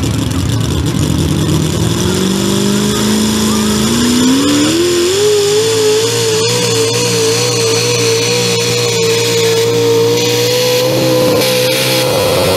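Economy hot rod pulling tractor's engine at full throttle, hauling a weight-transfer sled. Its revs climb over the first few seconds, then hold high and steady with a slight waver as it pulls down the track.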